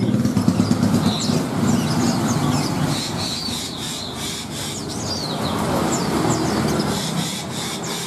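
Many small caged birds chirping and twittering over the steady hum of a motorcycle engine, which is louder in the first few seconds.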